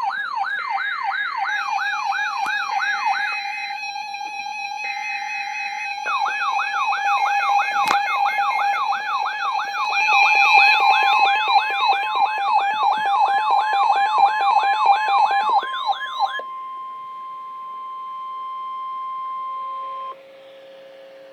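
Electronic siren yelping, rising and falling about three times a second, layered over steady alarm tones. The yelping cuts off about sixteen seconds in, leaving only the steady tones, which drop in level near the end.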